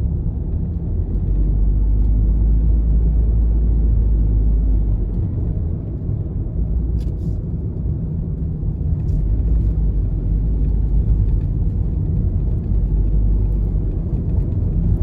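Car driving along a road: steady low rumble of engine and road noise.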